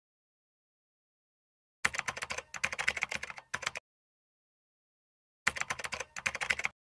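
Computer keyboard typing sound effect: two bursts of rapid key clicks, the first about two seconds long starting about two seconds in, the second shorter, near the end.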